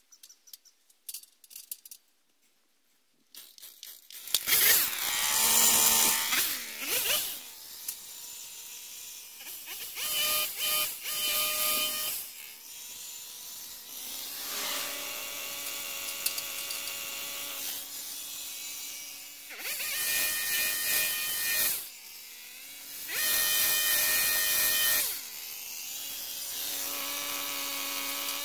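Stihl HS 46 two-stroke petrol hedge trimmer starting up about four seconds in, then idling steadily and revving up in short bursts several times.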